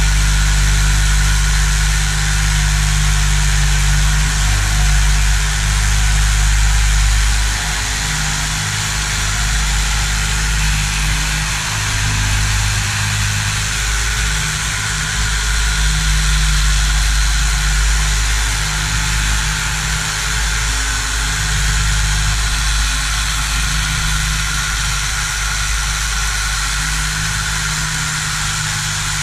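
Corded electric carving knife running steadily as its reciprocating blades saw through gun-case foam: a loud motor hum with a hiss over it.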